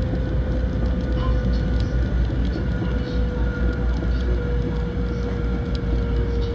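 Cabin running noise of a Kyushu Shinkansen 800 series train at speed, heard from inside the car. It is a steady low rumble with a held whine that drifts slightly lower in pitch, plus a few faint ticks.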